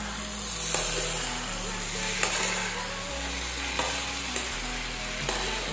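Food frying in hot oil in a pan: a steady sizzle, with a light click of a utensil against the pan every second or so.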